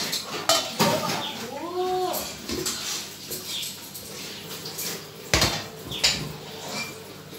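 Steel serving bowls and serving spoons clinking and knocking as food is served, in scattered single strikes, with a heavier knock about five seconds in.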